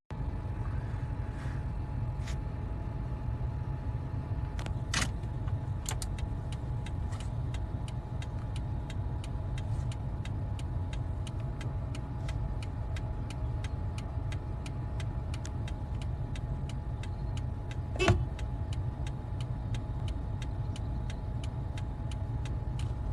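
Steady low rumble like a car's cabin noise on the move, with a faint steady hum and light regular ticking about three times a second. A few sharper clicks stand out, the loudest late on.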